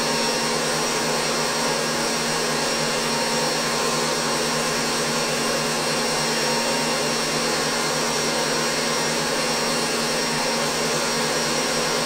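Electric stand mixer running steadily at speed, whisking egg whites made from albumin, a continuous even motor whir with a faint high whine.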